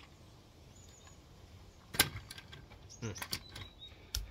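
Sharp plastic clicks and light knocks from a model locomotive being handled and set down on a wooden deck: one loud click about two seconds in, a quick cluster of clicks about a second later, and a click with a dull knock near the end.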